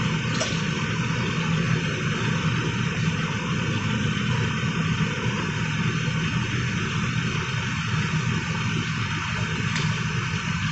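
Steady mechanical hum with a constant rush of air, unchanging throughout, typical of the ventilation machinery in a paint mixing room.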